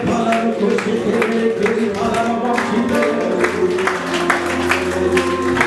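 Worship music with held chords and a steady beat.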